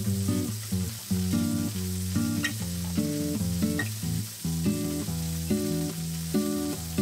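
Background music, a melody of short notes, over a thick sirloin steak sizzling in oil as it sears its first side in a copper frying pan.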